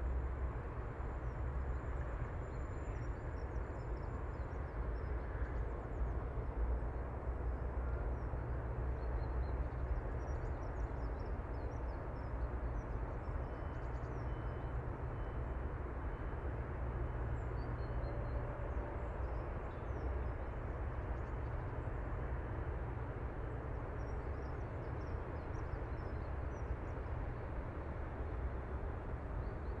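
Steady open-air background noise with a low rumble, of wind or distant traffic, and faint short bird chirps now and then.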